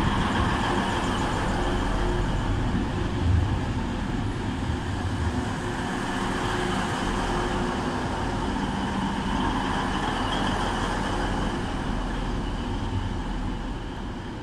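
Red regional multiple-unit train running past along the platform and moving off, with a steady rumble of wheels and running gear that fades near the end as the train leaves.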